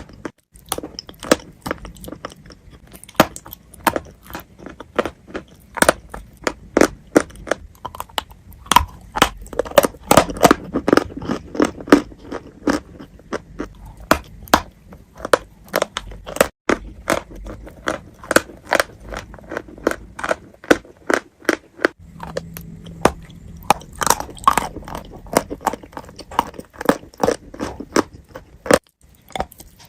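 Close-miked biting and chewing of wet chalk: many crisp crunches in quick, irregular succession.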